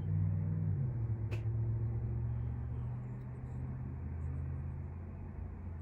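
A steady low hum that slowly fades, with a single light click about a second and a half in.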